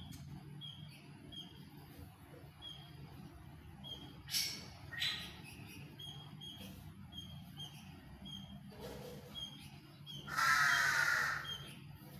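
Aviary birds calling: repeated short high chirps, two short loud calls about four and five seconds in, and a loud call lasting about a second near the end. A steady low hum runs underneath.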